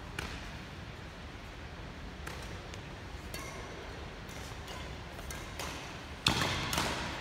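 Badminton rackets striking a shuttlecock during a rally: a series of sharp hits about a second apart, the loudest about six seconds in, echoing in the sports hall.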